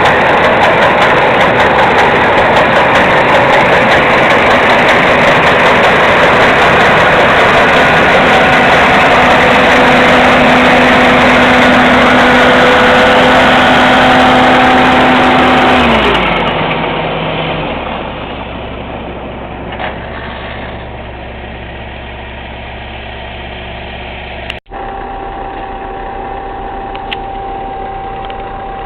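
Self-propelled swather's diesel engine running loud at high revs; about sixteen seconds in its pitch falls away and it settles to a quieter, lower running.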